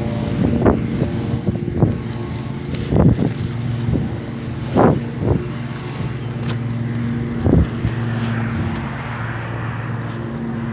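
A motor vehicle engine running with a steady low drone, with several short thumps scattered through the first part.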